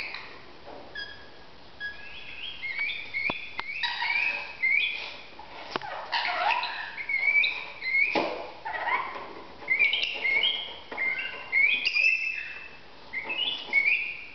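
Rainbow lorikeets chattering in a long run of short, shrill chirping calls, with a few sharp taps among them.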